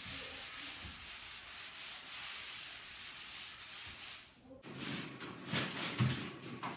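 Paint roller rolling primer onto a wall, a steady rubbing hiss that cuts off about four and a half seconds in. Quieter rubbing and a few soft knocks follow.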